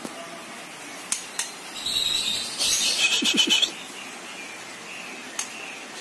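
Young white-rumped shama (murai batu) calling in its cage: a short high note about two seconds in, then a harsh, rapidly rattling call lasting about a second. A few light clicks come before and after it.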